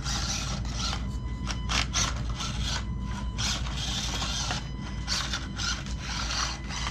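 1/24-scale micro crawler RC truck working over obstacles: its small electric motor and geartrain whirring in stop-start spurts, with its tires scraping and rubbing over the course.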